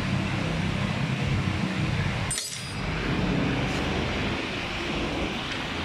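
Metal hand tools working on a scooter's underside: one sharp metallic clink with a brief ring a little over two seconds in, over a steady hum and hiss.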